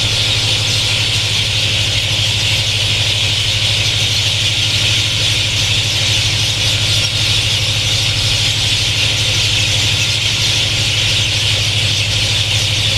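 Dense evening chorus of many birds calling at once, a continuous shrill wall of sound with no single call standing out. A steady low hum runs underneath.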